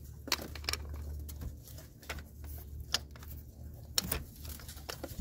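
A few sharp, irregularly spaced clicks of a ratchet-head digital torque wrench being handled and seated on a spark plug socket, over a low steady hum.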